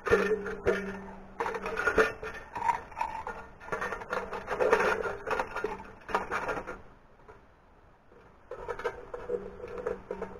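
Thin tin cans of a homemade coffee-can stove clattering, clinking and scraping together as a can chimney section is handled and fitted into the stove's side. It pauses briefly about seven seconds in, then starts again.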